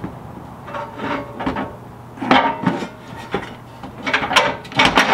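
Metal clanking and scraping in several short clusters: a winch mounting plate and its bolts knocking and rubbing against the truck's frame as the plate is held up under the bumper and fastened.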